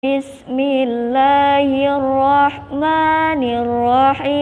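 A woman's voice chanting in the melodic style of Quran recitation, with long held notes and ornamented turns. She takes a quick breath about a quarter second in and another about two and a half seconds in.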